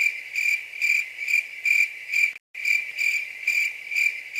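Cricket chirping, a high pulsing trill repeating about two and a half times a second, with a brief cut-out about halfway through; it is likely an edited-in sound effect.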